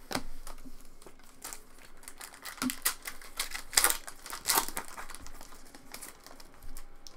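Foil trading-card pack wrapper crinkling and being torn open by hand, an irregular run of sharp crackles and clicks, loudest about four seconds in.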